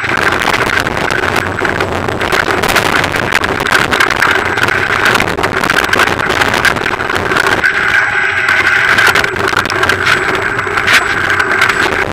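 Front tyre rolling fast over a wet, stony dirt trail: a steady loud rumble of tyre and wind noise, with constant rattling clicks from the camera's mount shaken over the stones.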